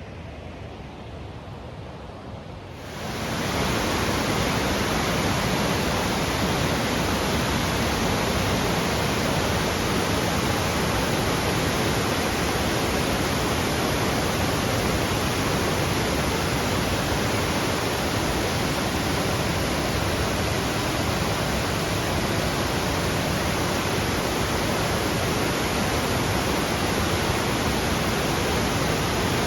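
A waterfall rushing close by: a steady, loud roar of falling water that swells up about three seconds in, after a fainter rush of water.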